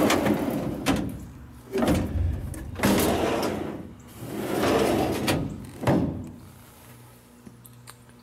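Steel tool-cabinet drawers loaded with heavy lathe tooling sliding open and shut on their runners, about four runs in the first six seconds, several ending in a sharp metal knock. After that only a low steady hum is left.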